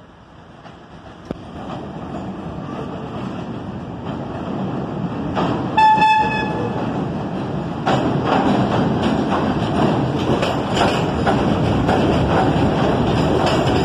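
A New York City subway train approaches, growing steadily louder, and sounds one short single-pitched horn blast about six seconds in. Then it runs past close by, its wheels clacking rapidly over the rail joints.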